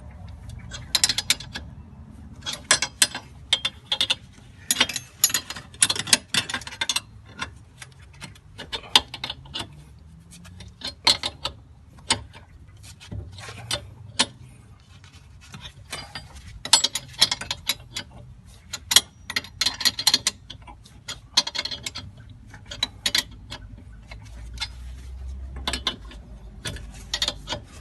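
Socket ratchet worked in repeated strokes, giving short bursts of rapid clicking, as it turns the nuts on the puller bolts that press the Mazda MX-5 Mk3's front hub out; the hub is slowly coming free.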